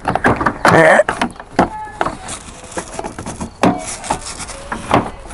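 Irregular knocks, clicks and rubbing, as of hard parts being handled, with a short squeak-like tone about a second in.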